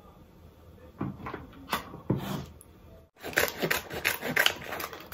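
A kitchen knife cutting lotus root on a plastic cutting board, a few separate strokes. After a short break, kitchen scissors cutting open a plastic pouch of boiled bamboo shoots, with a dense run of plastic crackling.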